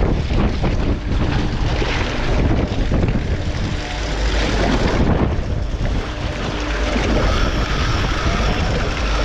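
Wind buffeting the microphone in uneven gusts, over a heavy low rumble and the rush of the sea against the boat.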